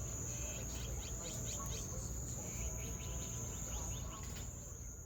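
Insects trilling in a steady high tone, with a run of short, quick bird chirps over it and a low rumble underneath.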